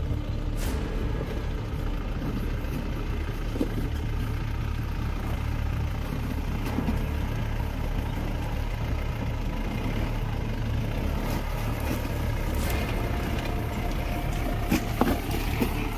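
Mahindra Bolero's engine running steadily at low revs, a constant low drone, with a few short knocks and rattles about half a second in, near four seconds, and a cluster near the end.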